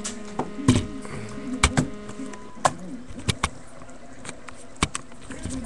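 About ten sharp clicks and knocks at irregular intervals, over a low steady hum that stops a little under halfway through.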